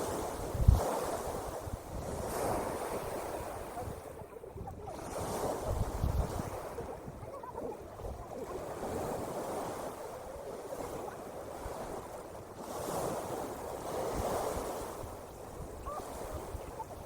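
Ocean surf washing in and drawing back, swelling and fading every few seconds, with a couple of gusts of wind buffeting the microphone.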